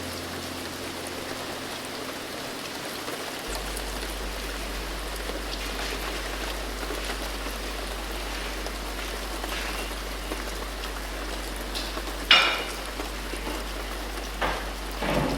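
Steady rain falling, an even pattering hiss, with a low steady hum joining a few seconds in. A sharp clatter sounds about twelve seconds in, and two more knocks come near the end.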